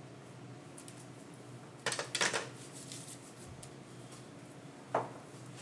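A short clatter and clink of hard objects about two seconds in, then a single knock about five seconds in, over a low steady room hum.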